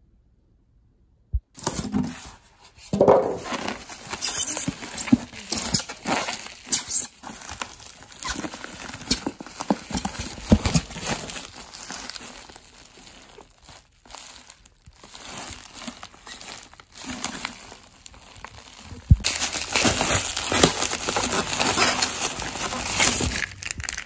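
Bubble wrap and plastic packing crinkling and rustling as hands dig through a styrofoam cooler box, in irregular crackles. It starts about a second and a half in and grows denser and louder over the last few seconds.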